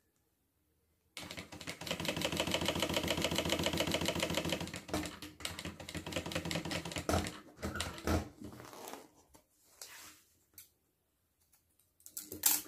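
Industrial straight-stitch sewing machine sewing a seam with a short stitch: a fast, even run of needle strokes starts about a second in, then slows into short stop-and-go runs. A sharp click comes near the end.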